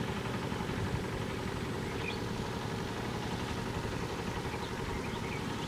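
A small engine running steadily at an even idle-like speed, with a few faint high chirps over it.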